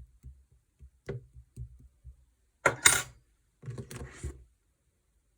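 Clear slime being handled: a few soft taps and bumps, then two louder wet squishes about three and four seconds in.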